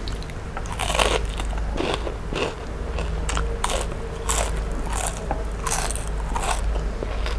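Crisp bites and chewing of fried fish: a run of crunches, roughly one or two a second.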